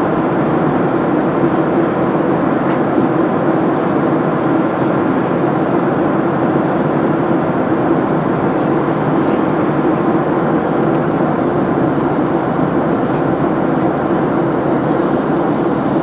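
Steady jet engine and airflow noise heard inside the cabin of a Southwest Airlines Boeing 737 in flight: a loud, even rush with a low hum beneath it and no change in level.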